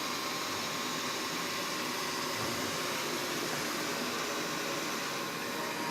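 Xiaomi Mi robot vacuum running with a steady whirring noise as it backs into its charging dock.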